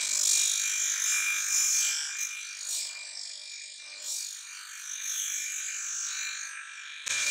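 Bench disc sander running with a steady high whine while a leaf-spring steel cleaver blade is pressed against its abrasive disc, throwing sparks. The hissing grind is loudest in the first two seconds, eases off, then swells again past the middle.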